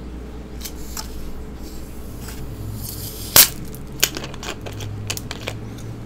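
Screw cap twisted open on a plastic bottle of sparkling water: a short rising hiss of escaping gas ending in a sharp crack about three and a half seconds in, then a few lighter plastic clicks and taps.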